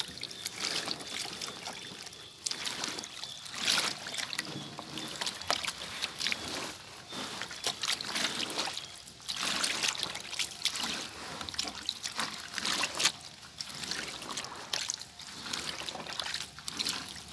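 Gloved hands kneading and rubbing a soaked batik cloth in a shallow tub of water glass (sodium silicate), the colour-locking agent, with irregular wet sloshing and trickling as the liquid is worked through the fabric.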